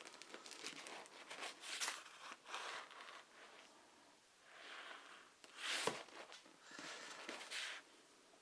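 Comic books being handled and shuffled through: paper rustling in several short swishes, the loudest about six seconds in.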